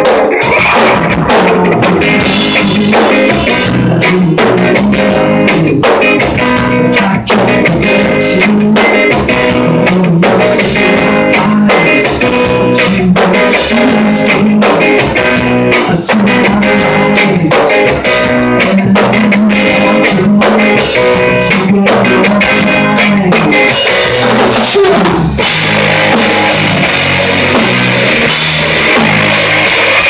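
Live rock band playing: electric guitar chords over a Pearl drum kit keeping a steady beat. About 25 seconds in, the playing turns denser and the separate drum hits blur into a continuous wash.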